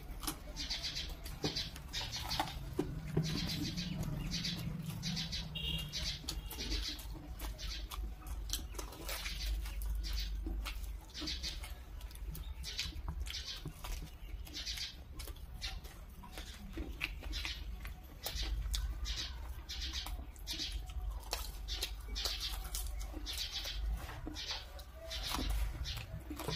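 Close-miked eating sounds of two people chewing fried momos and Maggi noodles: an irregular, steady run of short crunches, lip smacks and mouth clicks.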